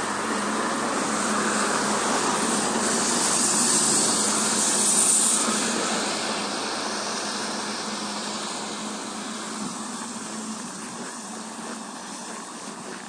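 A vehicle passing on the street: a broad hiss of tyres and engine that swells to a peak about five seconds in and then slowly fades away.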